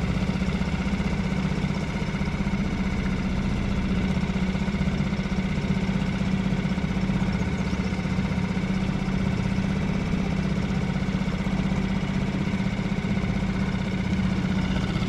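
Small boat motor running steadily, a constant low hum that does not change in pitch.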